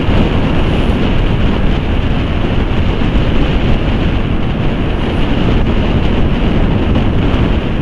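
Steady wind noise buffeting the microphone of a motorcycle riding at about 60 km/h, with the vehicle's running noise underneath.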